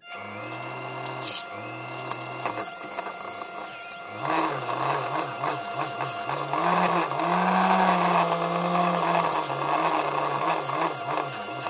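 Wood lathe running, with sandpaper held against the spinning wooden bowl from about four seconds in, adding a steady hiss over the motor's thin whine.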